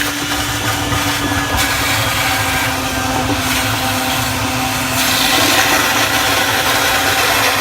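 A vacuum running steadily, sucking standing water and debris out of the sump of a dishwasher that won't drain. It is a loud, even motor hum with a hiss of air over it.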